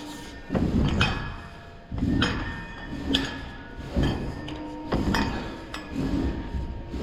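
Repeated knocks with a metallic clink, about one a second, some ringing on after each strike.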